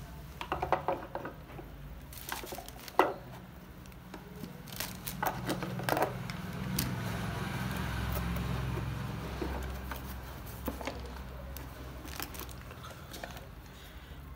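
Handling noise: rubber hoses being moved and a wooden box being turned over, with scattered clicks and knocks and one sharp knock about three seconds in, over a low steady hum.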